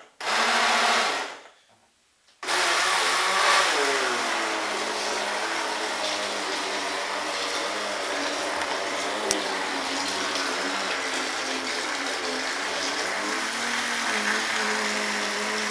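Electric RC boat motor running at high speed: a burst of about a second and a half, a short pause, then a continuous run from about two and a half seconds in, with a brief dip in pitch soon after it starts.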